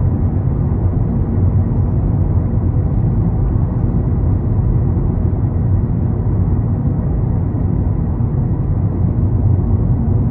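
Car driving on a highway: a steady low rumble of road and engine noise.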